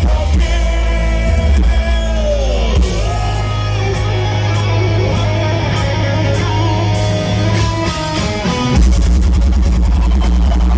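Live power metal concert recorded close to the PA speakers and heavily distorted: singing over guitars and drums. Near the end the sound turns into a dense, bass-heavy wall.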